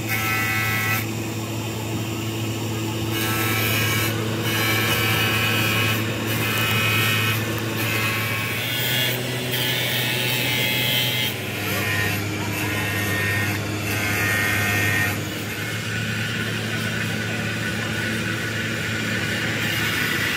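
A power tool working on the engine block. A steady motor hum runs throughout, and a higher grinding whine comes and goes in spells as the tool bears on the metal, stopping about fifteen seconds in.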